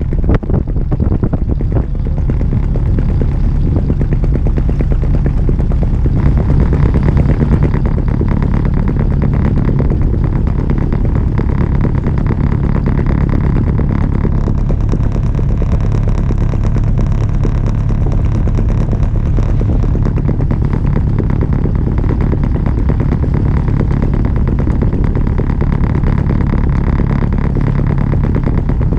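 Albin Vega sailboat's auxiliary engine running steadily while motoring, a constant low hum.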